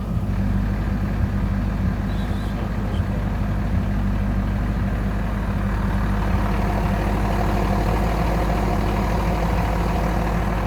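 1999 C5 Corvette's LS1 V8 idling steadily. From about halfway through, a higher, noisier whirring rises over the idle: the noise of a failing clutch throwout bearing.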